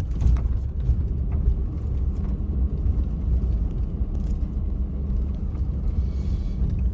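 A vehicle's steady low rumble.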